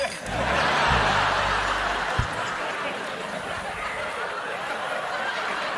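Studio audience laughing, swelling within the first second and then slowly dying away, with a brief low thump about two seconds in.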